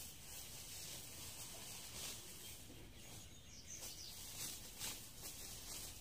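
Quiet outdoor ambience with a faint bird call and soft, brief rustles of leaves and stalks as weeds are pulled by hand.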